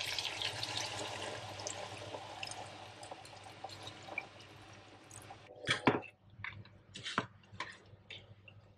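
Water poured from a measuring jug into a hot wok of frying mutton and spice paste, the sizzle fading as the pan fills. Then a spoon stirring the pot and knocking against the pan several times.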